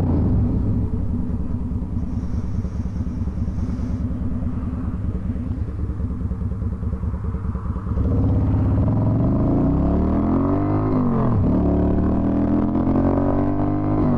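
Yamaha Virago XV250's small V-twin engine running steadily at low revs, then revving up as the bike accelerates away, its pitch rising, dropping at a gear change, and rising again before another shift near the end.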